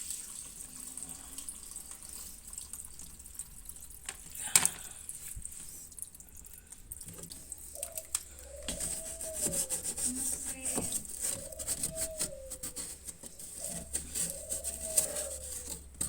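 Water running and splashing as washing machine drain parts are rinsed and scrubbed by hand, with a sharp knock about four and a half seconds in. In the second half, three drawn-out calls rise and fall in pitch in the background.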